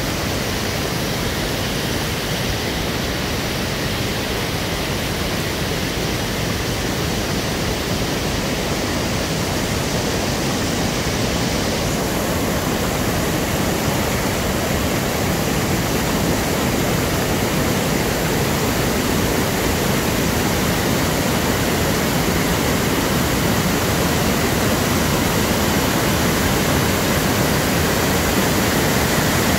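Fast-flowing river water rushing and churning over rocks: a steady, even hiss that grows a little louder over the span.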